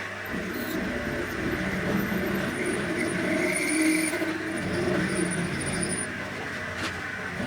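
Lathe running steadily while cutting to extend a groove in a table saw part, with a faint high whine over the motor noise. A single sharp click comes near the end.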